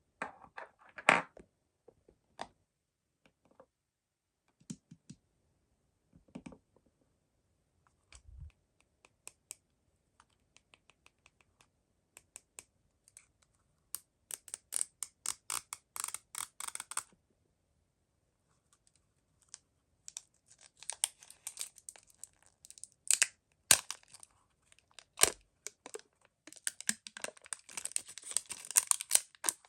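Hands handling mystery-toy packaging: scattered light taps and clicks, then bursts of crinkling and tearing wrapper, the longest near the end.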